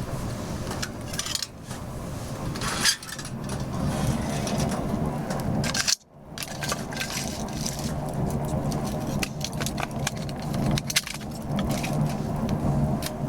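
Wood-burning stove fire crackling, with many sharp pops and clicks over a steady low rushing noise; the sound breaks off briefly about six seconds in.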